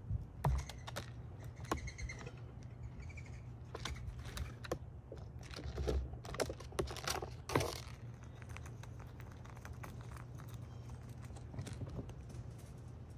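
A squirrel scrabbling and foraging on a feeder tray among peanuts in the shell and seed: a run of small taps, clicks and rustles, thickest in the first two-thirds and sparser after. A few faint bird chirps come through about two seconds in.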